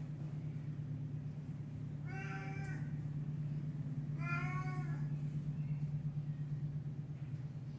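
A black cat meowing twice, two short calls about two seconds apart, over a steady low hum.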